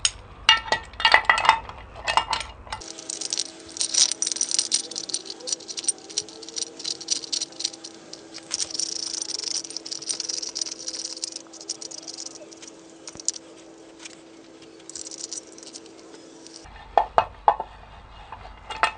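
Steel ball bearings and metal tools rattling and clinking during gearbox work: a continuous stream of small metallic clicks and rattles. A faint steady hum runs from about three seconds in until near the end.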